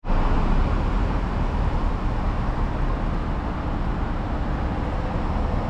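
Steady road and engine noise of a car driving slowly, heard from inside the cabin.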